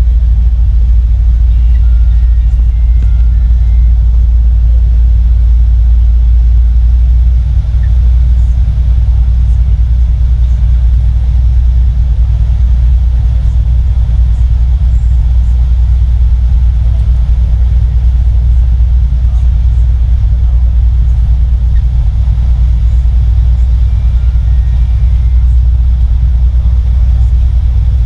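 Ferry's engines running under way, a loud, deep, steady rumble heard from the stern deck over the wake.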